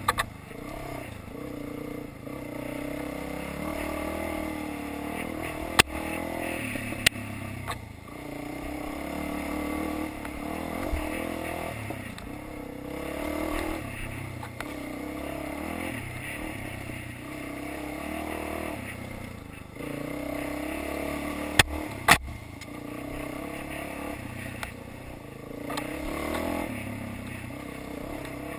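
Dirt bike engine on the move, its pitch rising and falling as the throttle is opened and closed. A few sharp clacks cut through: a pair about a quarter of the way in and another pair about three-quarters through.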